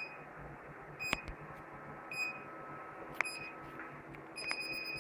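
Intruder and fire alarm system beeping: short high-pitched beeps about once a second, with a couple of sharp clicks, then a steady high tone that starts near the end and holds.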